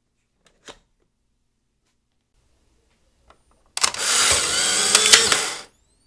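Polaroid instant camera firing: a sharp shutter click, then about two seconds of motor whirring as the print is driven out, stopping abruptly. A faint click comes earlier, under a second in, and faint rising electronic tones begin right at the end.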